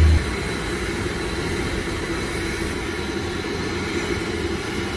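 Mung dal bhajia batter deep-frying in a large kadai of hot oil: a steady sizzle.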